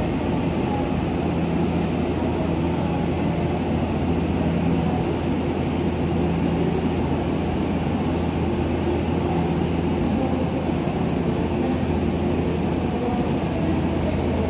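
Tokyo Metro 17000 series electric train standing at an underground station platform, its onboard equipment giving a steady low hum.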